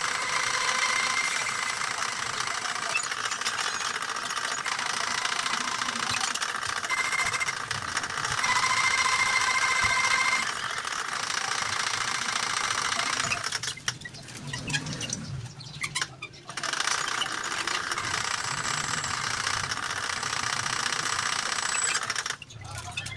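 A machine's motor running with a steady mechanical noise and a faint whine, stopping for about three seconds in the middle, then running again until just before the end.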